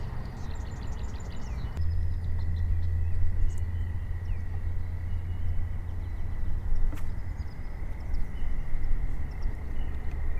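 Outdoor lake ambience: a low steady rumble that swells for a few seconds, with a faint steady high whine under it. A bird chirps in a quick series in the first couple of seconds, and there is a single click later on.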